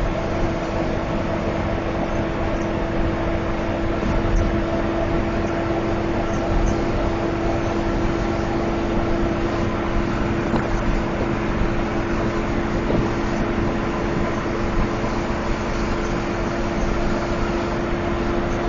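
Intercity bus at steady cruising speed heard from inside the driver's cab: a constant engine and drivetrain drone with a steady whine over road rumble.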